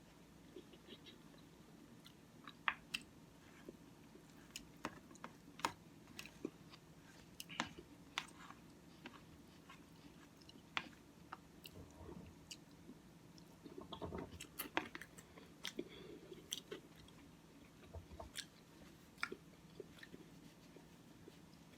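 Close-up chewing and eating of Cookie Crisp oatmeal, with short sharp clicks scattered irregularly throughout.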